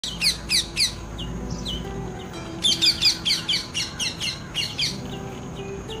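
Indian ringneck parakeet calling in short, high-pitched screeches, each falling in pitch: three loud ones in the first second, then a rapid run of about ten more starting a little before the halfway mark. Soft background music with low held notes runs underneath.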